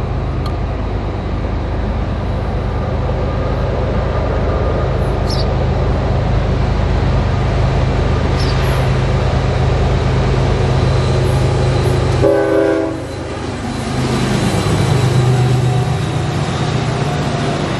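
Diesel freight locomotive approaching and passing with a steady low engine drone. It sounds a short horn blast about twelve seconds in, and its engine note drops in pitch as it goes by.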